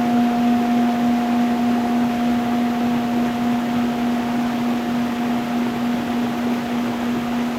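A singing bowl ringing, a steady low tone with a higher overtone that barely fades, over the continuous rush of a stream flowing over stones.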